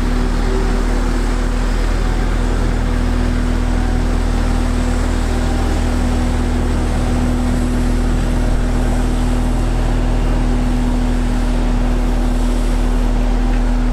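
Diesel engine of heavy road-paving machinery running steadily at constant speed: a low drone with a constant humming tone that does not change.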